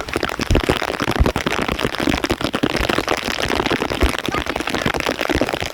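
Heavy rain pouring down, with raindrops and gusts hitting the microphone in sharp thumps, several of them loud low knocks.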